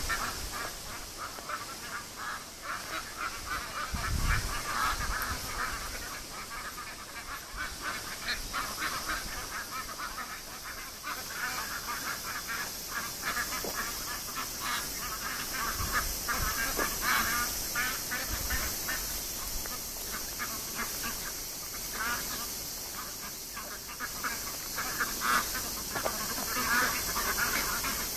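A flock of aigamo ducks quacking, many overlapping calls all through, in places denser and louder. A low thump about four seconds in.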